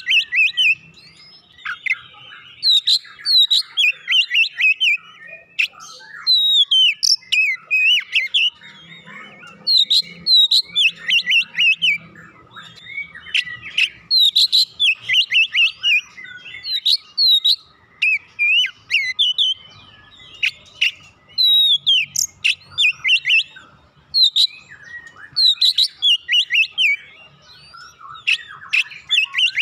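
Oriental magpie-robin in full song: loud, varied phrases of rapid whistles and chirps, each a second or two long, with brief pauses between.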